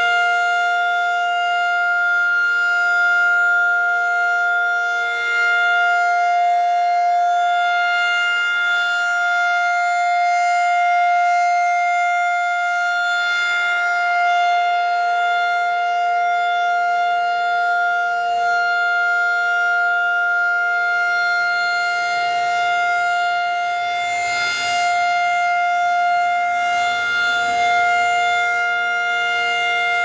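Federal Signal 2001 rotating outdoor warning siren sounding a steady held tone with no rise or fall in pitch, its loudness swelling slightly as the rotating horn sweeps past. The siren is being tested.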